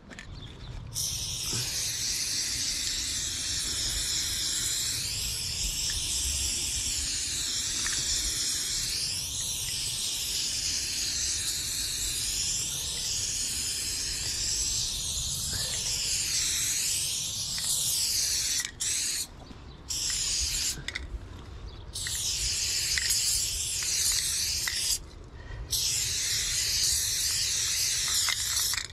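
Aerosol spray-paint can spraying in long continuous hissing passes, the hiss wavering in pitch as the can moves over the wall. It starts about a second in and stops briefly several times in the last third as the nozzle is let go and pressed again.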